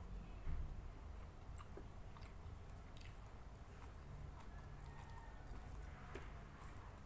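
Faint chewing and mouth sounds of a person eating nasi uduk rice and side dishes by hand, with scattered small clicks and a soft thump about half a second in, over a low steady hum.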